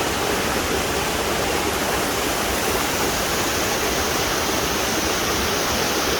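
Khlong Neung waterfall, a steady rushing of falling and splashing water running heavy after recent storms.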